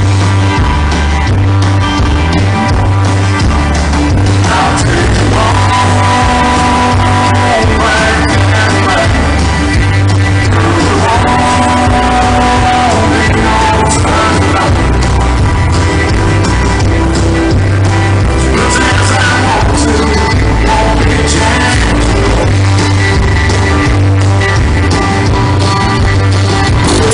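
Country-rock band playing with a singer over a steady driving beat.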